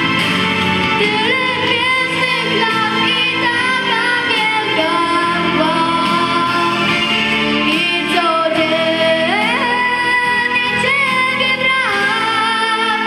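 A girl singing into a handheld microphone over backing music, holding long notes and sliding between them.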